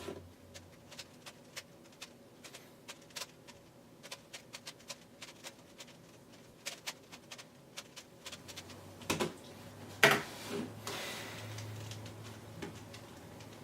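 3x3 Rubik's cube being turned quickly during a solve: rapid, irregular plastic clicking of the layers turning, with a couple of louder clacks about 9 and 10 seconds in.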